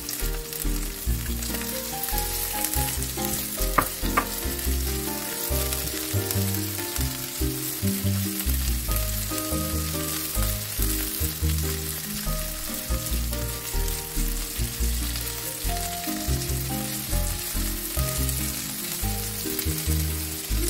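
Diced raw prawns frying in oil in a non-stick pan with onion, garlic and shallots: a steady sizzle, with soft scraping as a silicone spatula stirs them.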